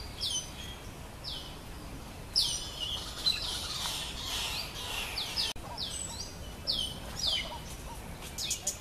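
Birds calling with many short, high notes that slide sharply downward, repeated every second or so and crowding together for a couple of seconds in the middle.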